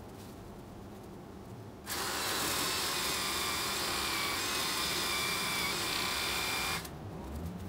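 A small electric power tool's motor starts about two seconds in, runs steadily at one pitch for about five seconds, and cuts off abruptly: a tool cutting into the woody stems of a white Lady Banks rose during hard pruning.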